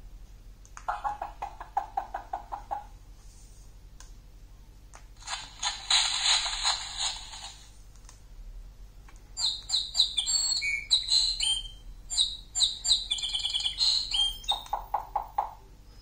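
A push-button children's sound book's small speaker playing short recorded sound effects: a brief run of even pulses about a second in, a loud rushing noise about five seconds in, then several seconds of birds chirping and twittering, with another short run of pulses near the end.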